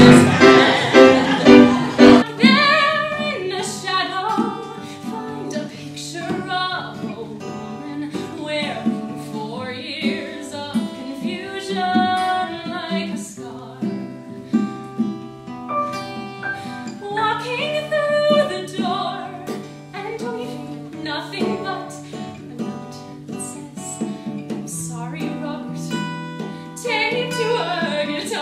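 Solo female singer performing a musical-theatre song in a trained voice, with instrumental accompaniment. A loud held chord cuts off about two seconds in and a new song begins.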